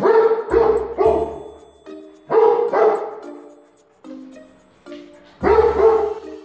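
A dog barking repeatedly in short runs of two or three barks, with background music underneath.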